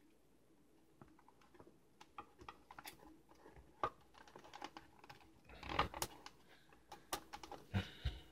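Faint, scattered clicks and scuffs of a plastic Transformers figure's parts being handled and pressed into a foam throne, with louder bunches of clicking and rubbing a little past halfway and again near the end.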